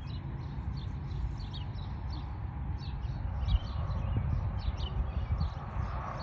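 Small birds chirping in short, repeated calls over a steady low rumble, with a single thump about three and a half seconds in.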